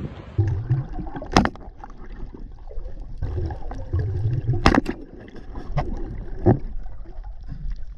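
Muffled underwater water noise and low rumbling from a spearfishing dive, broken by a few sharp clicks. The loudest click, a little past halfway, is the speargun firing its spear.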